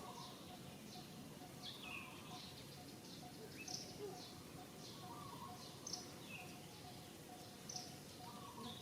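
Faint bird chirping: short high notes that fall in pitch, about once a second, over a lower note repeating a few times a second.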